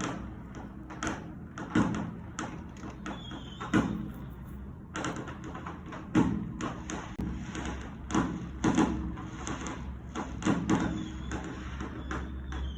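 Fireworks going off: a run of about ten sharp bangs at uneven intervals, with smaller pops between them and a few faint, short falling whistles.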